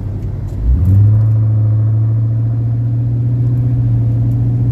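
Vehicle engine pulling away: its pitch rises about a second in and the engine gets louder, then it holds a steady hum as the vehicle accelerates.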